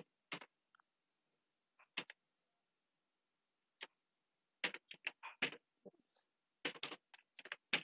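Computer keyboard keystrokes: a few single clicks, then two quick runs of typing in the second half.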